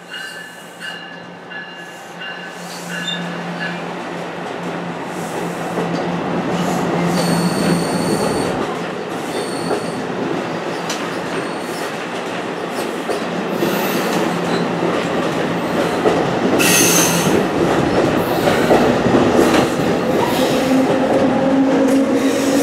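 NJ Transit Multilevel double-deck coaches rolling past close by, wheels clattering over rail joints with brief high-pitched wheel squeals, the noise building. Near the end a low whine climbs steadily in pitch as the ALP-46A electric locomotive pushing at the rear draws near.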